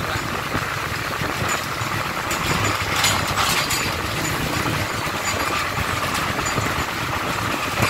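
Công nông farm truck's diesel engine running as it drives along, with road noise and a few short clicks about three seconds in.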